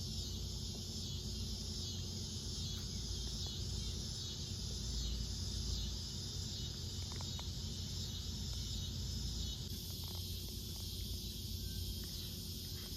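Insects chirping in a steady high-pitched chorus with a regular pulse, over a low rumble.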